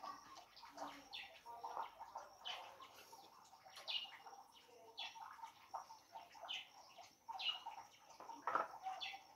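Faint small-bird chirps, short high falling notes repeating about once a second, with a brief sharp sound near the end.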